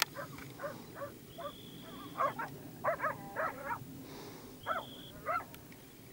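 A series of short animal calls, each rising and falling in pitch, bunched in the middle and again near the end. A steady high tone comes twice, each time for under a second.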